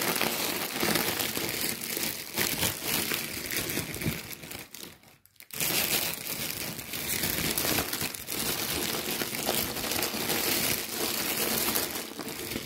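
Crinkling and rustling of a foil thermal insulation wrap being handled inside a styrofoam shipping box, with a short pause about five seconds in.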